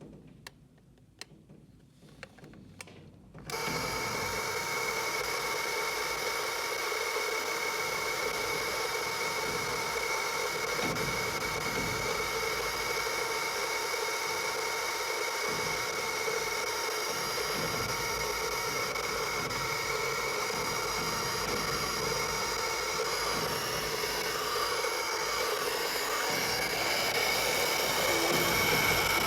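Citizen quartz alarm clock ticking faintly, then about three and a half seconds in its alarm buzzer goes off: a loud, steady buzz with several fixed tones that keeps on unbroken and grows a little louder near the end.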